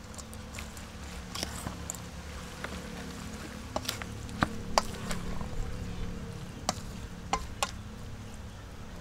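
A wooden spatula and a hand tossing a wet glass-noodle seafood salad in a stainless steel bowl: soft squelching, with a handful of sharp clicks of the spatula against the bowl in the middle of the stretch. A steady low hum runs underneath.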